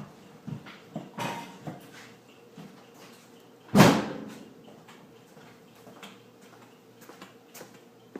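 A few light knocks and one loud bang about four seconds in, over a faint steady hum.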